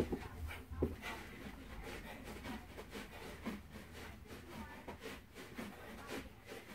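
Feet stepping and shuffling on a carpeted floor, with clothing swishing, as a man shadowboxes through fast punches and knee strikes. Two heavier thumps come at the start, about a second apart.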